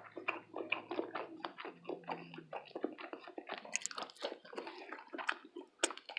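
Close-miked chewing of soft food, with irregular wet mouth clicks and smacks several times a second.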